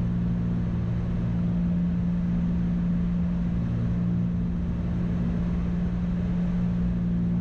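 Cessna 310's twin piston engines and propellers droning steadily in the cockpit on final approach, a constant low hum with no change in pitch.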